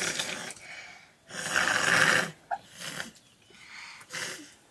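People slurping noodles in a series of noisy, airy slurps, the longest and loudest lasting about a second, starting about a second and a half in.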